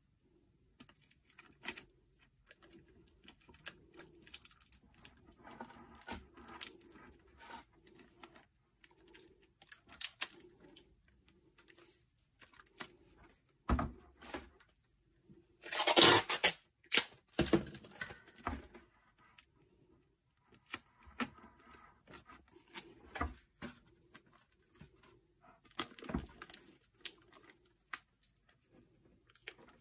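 Clear plastic film crinkling and rustling as it is handled, in scattered bursts with small clicks, the loudest burst lasting about a second about halfway through.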